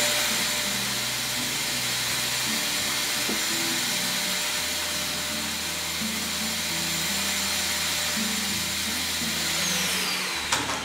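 Vacuum cleaner with a brush attachment running steadily, cleaning sanding dust off a guitar body; its high motor whine winds down about ten seconds in as it is switched off.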